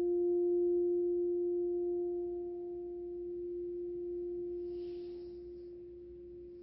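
Crystal singing bowl ringing out after being played: one steady, pure hum with a fainter overtone above it, slowly fading. Its sound is the cue to end the resting pose.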